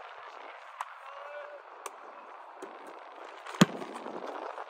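Distant football players calling out over open-air pitch ambience, with a few faint knocks and one loud, sharp thud about three and a half seconds in.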